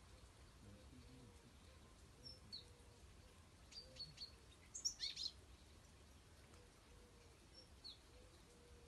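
European goldfinches calling faintly: scattered short high chirps, some dipping in pitch, with a quick flurry of them about five seconds in.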